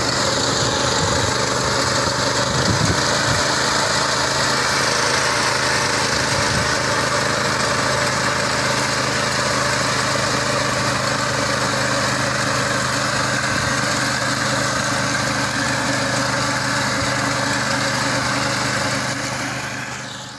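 Small petrol engine of a walk-behind fodder reaper running steadily under load as its cutter bar mows through dry fodder stalks. The sound fades out near the end.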